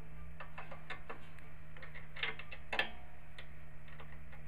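Metal hand tool clicking and ticking against the carburetor's fittings as it is being unbolted from the go-kart's small engine: light, irregular clicks, a few a second, over a steady low hum.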